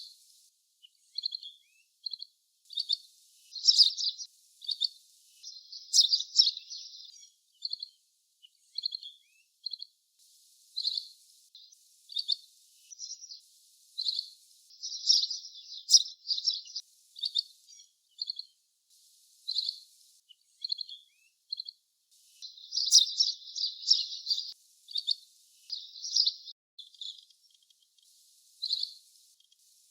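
Asian green bee-eater (little green bee-eater) calling: short, high, thin notes repeated about once a second, breaking several times into quick runs of trilled notes.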